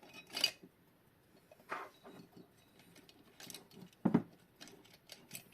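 Scattered small clicks and light scrapes of tools against small metal parts as a quartz clock movement is worked apart, with one sharper click about four seconds in.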